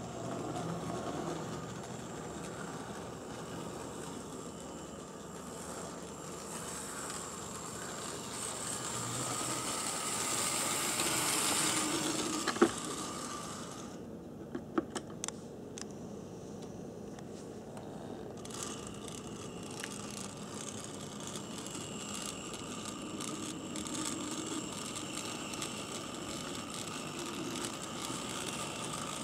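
HO-scale brass model steam locomotive, a Tenshodo JGR Neilson D9 4-4-0, running on the track: the steady whine of its small motor and gearing with a light rattle of wheels on rail. It gets louder a little before halfway, then a few sharp clicks come and it runs quieter for a few seconds before rising again.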